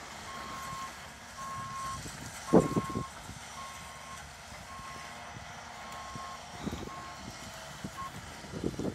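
Caterpillar mini excavator's backup alarm beeping steadily, one high beep about every second. A heavy thump comes about two and a half seconds in, with a couple of lighter knocks later.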